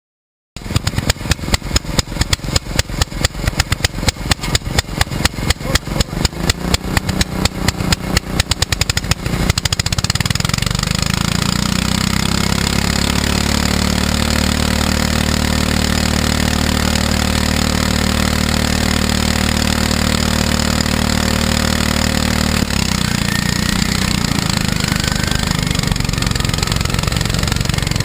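Racing lawn mower engine: a pulsing, uneven running beat that quickens for several seconds, then settles into a steady high-speed drone at constant pitch. The sound changes again a few seconds before the end.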